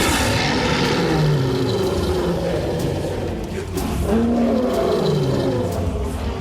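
Several animal roars overlapping, starting suddenly and then rising and falling in pitch, in an animated film soundtrack.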